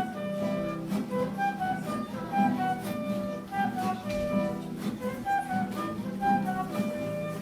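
Instrumental break of a patriotic song with no singing: a melody of short held notes over a steady accompaniment.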